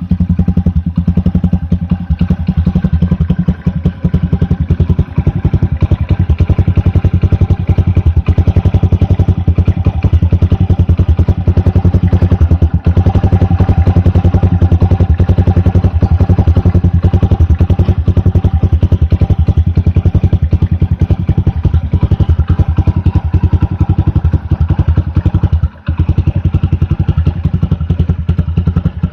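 Honda Super Cub 90's small single-cylinder four-stroke engine idling steadily through a Moriwaki titanium Monster aftermarket muffler, a fast, even, deep exhaust beat.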